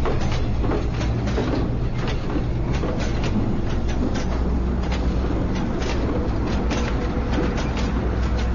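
A train moving slowly on rails: a steady low rumble with repeated, irregular clicks and clanks of wheels and couplings.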